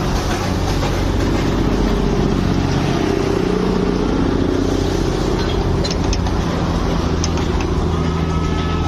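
Locomotive engine of the Darjeeling toy train running with a steady low drone, with a few faint clicks about six and seven seconds in.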